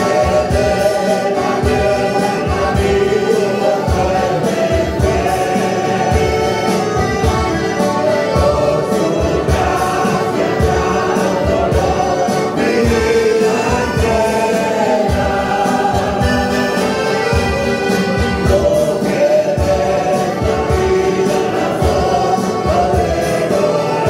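Church choir singing a Spanish hymn together, accompanied by strummed acoustic guitars and an accordion, the guitars keeping a steady beat.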